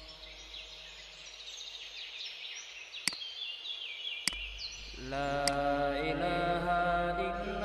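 Background music in a chant-like vocal style: a high, sliding melody at first, joined about five seconds in by a fuller, louder lower part. Three sharp clicks fall in the middle.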